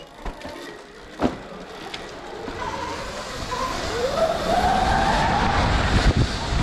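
Electric dirt bike accelerating on a dirt track: its motor whine rises in pitch while the tyre and track noise builds and gets louder. A single sharp knock comes about a second in.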